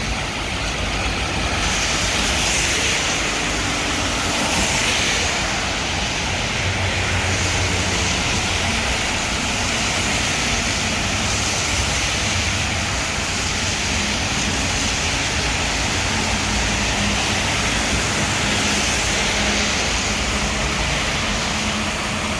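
Heavy rain in city traffic: a steady hiss of rain and wet road that swells every few seconds, over the low running of a vehicle engine.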